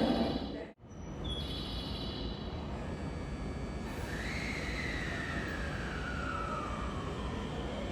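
Electric train at the platform: a steady running rumble, with a motor whine that comes in about halfway through and slides slowly down in pitch over a few seconds.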